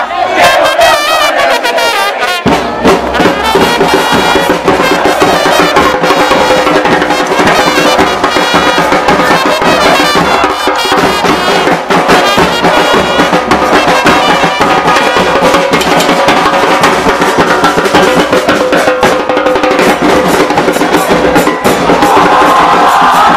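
Supporters' band in the stands: a trumpet playing a chant melody over a pounding bass drum, with the fans singing along. The drum's low thuds come in about two seconds in.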